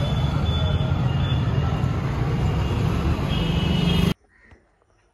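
Swaraj 855 tractor's three-cylinder diesel engine running steadily, heard from the driver's seat. The sound cuts off suddenly about four seconds in.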